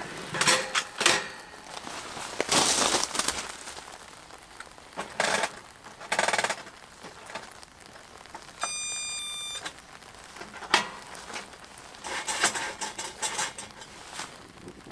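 Paseco Camp-30 kerosene heater being handled: knocks and rustles as it is set down, then about nine seconds in a short electric buzz of about a second from its igniter as the ignition control is pressed, followed by a run of small clicks as the little flame-window flap is opened.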